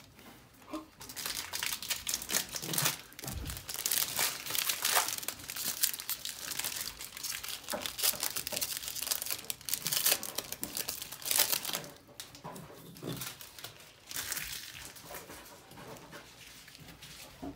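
Trading-card pack wrappers crinkling and tearing as packs are opened and handled. The crackling runs thick for most of the time, eases off about twelve seconds in, and comes back briefly near the end.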